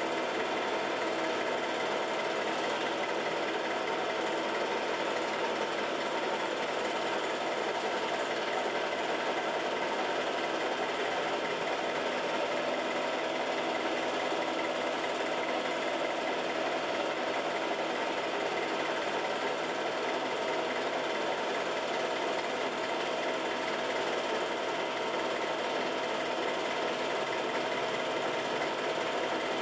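Film projector running with a steady mechanical whir, as it plays a home-movie reel.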